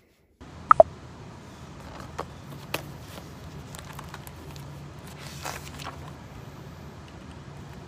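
Steady outdoor background with a low hum of traffic or building machinery. Two sharp clicks come about a second in, then a few lighter taps and a brief paper rustle as the pages of a spiral notebook are flipped.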